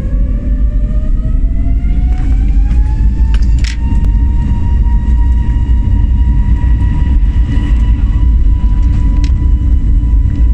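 Airliner's engines spooling up to takeoff power, heard from inside the cabin during the takeoff roll: a whine rises in pitch over the first three seconds or so, then holds steady over a heavy low rumble.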